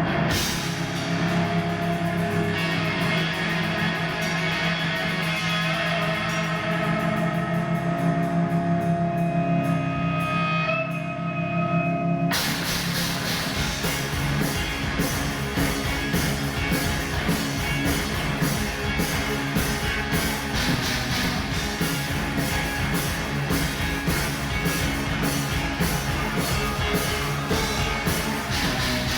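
Rock music with electric guitar: held, ringing chords for about twelve seconds, then the full band with drums comes in abruptly and plays a driving, steady beat.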